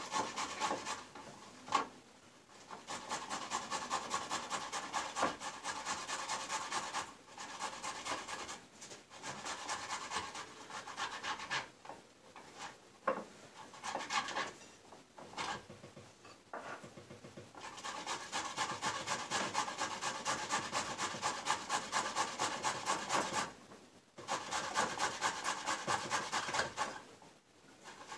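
A boiled beet being grated on a hand grater over a plate: fast, even rasping strokes in runs of several seconds, with short pauses between the runs.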